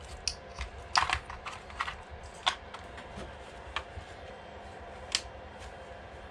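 Irregular small plastic clicks and knocks from handling an RC truck's chassis while a 3S LiPo battery is fitted into it. The sharpest clicks come about one, two and a half and five seconds in.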